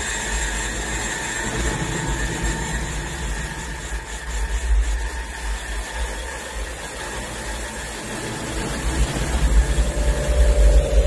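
Low, rough electronic drone made from the performer's own muscle and blood sounds, picked up by an Xth Sense biosensor on his body and amplified and processed over loudspeakers as he strains against concrete blocks. It swells louder near the end.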